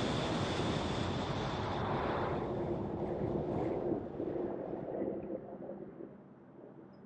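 Road traffic noise: a vehicle passing close with a rush of tyre and engine noise that starts suddenly, then dulls and dies away over a few seconds.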